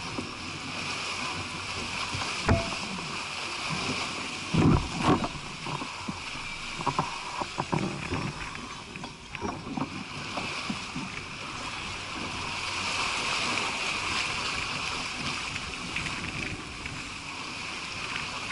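Sailing yacht driving through choppy sea: a steady rush and hiss of water and spray along the hull. Several sharp knocks and thumps stand out, one about two and a half seconds in and the loudest pair near five seconds, with smaller ones after.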